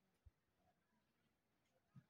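Near silence, broken only by two faint, brief low thuds, one about a quarter second in and one near the end.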